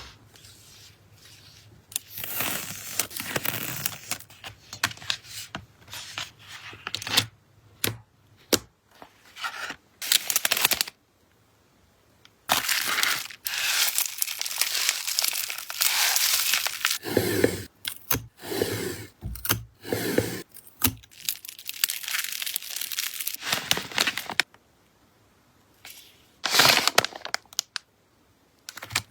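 Packing sounds: plastic and paper packaging crinkling and tearing in irregular bursts, with a few sharp clicks and short pauses between handlings.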